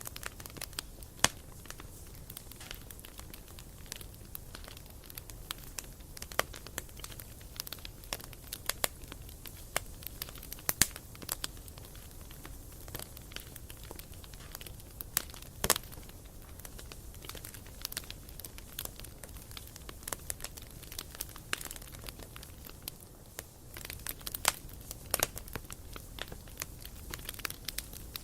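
Wood campfire crackling, with sharp irregular pops, a few of them louder, over a low steady rumble.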